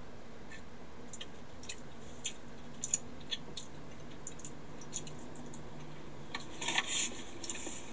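Close-up eating sounds: irregular small clicks and smacks of chewing and a fork working in a takeout bowl of Chipotle chicken and rice, over a faint steady hum.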